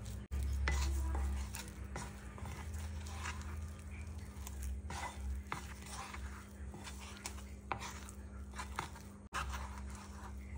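A cooking utensil clinking and scraping against a bowl or pan as food is stirred, in irregular short knocks, over a low rumble that is loudest near the start.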